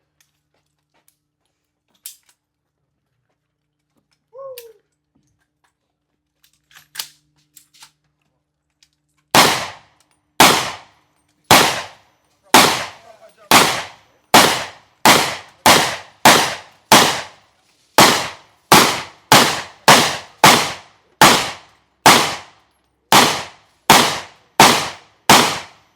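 Semi-automatic gunfire: after a quiet stretch, a long string of about two dozen loud single shots starts about nine seconds in, fired steadily at roughly one to two shots a second, each with a short echo.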